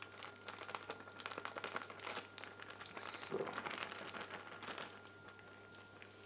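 Plastic vacuum-pack bag crinkling and crackling as red cabbage is squeezed out of it, a run of small crackles that thins out after about five seconds.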